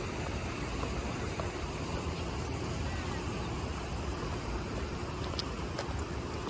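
Steady rushing outdoor ambience beside a river, a mix of flowing water and traffic, with a few faint clicks.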